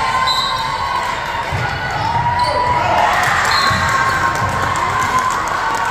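Girls' voices shouting and cheering across a gymnasium as a volleyball rally ends, with dull thuds on the wooden court floor underneath.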